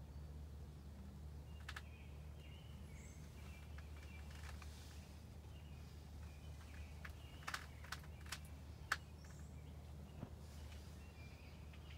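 Quiet woodland ambience: faint, scattered bird chirps over a steady low hum, with a few sharp clicks between about seven and a half and nine seconds in, the loudest near the end of that run.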